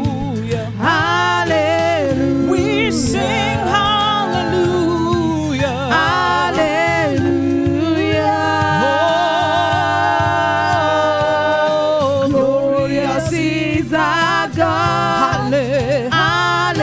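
Gospel worship singing: several singers on microphones hold long notes with wide vibrato over a steady sustained instrumental backing.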